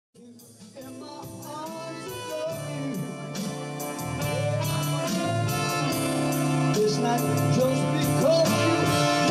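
Live bar band of drums, electric guitar, keyboards and electric bass playing an R&B rock song. It starts quietly and grows steadily louder, with a regular cymbal beat, a melodic lead line, and the bass coming in about four seconds in.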